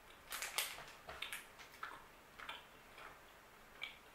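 Close-up chewing of a chocolate-covered macadamia nut caramel candy: an irregular run of soft crunches and wet mouth clicks, loudest about half a second in.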